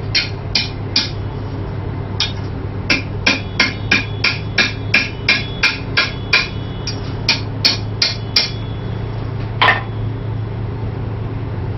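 Hammer striking steel bar stock on an anvil in quick, ringing blows, about three a second, with a short pause about a second in and one heavier, duller blow near the end. A steady low hum runs underneath.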